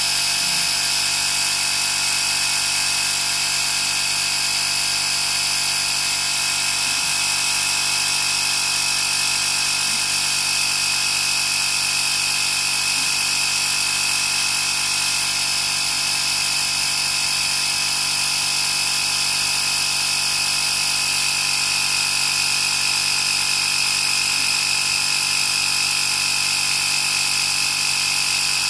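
Workzone Titanium 20 V cordless air compressor running steadily with a high-pitched whine as it pumps air into a flat car tyre.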